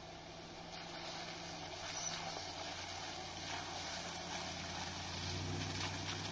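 Straight-piped 4.4-litre V8 (BMW M62B44) of a 2005 Range Rover L322 running at low revs with a steady exhaust note as the truck crawls across muddy ground, getting louder toward the end as it comes closer.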